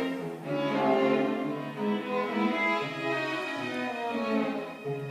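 A string quartet of two violins, viola and cello playing: sustained bowed notes in the upper voices over a cello line that moves from note to note.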